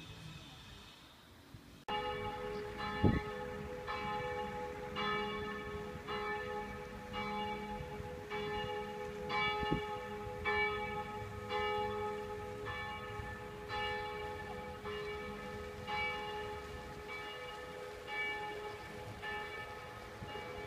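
Church bell ringing, struck about once a second with its hum carrying on between strokes. It starts abruptly about two seconds in, and a brief thump follows about a second later.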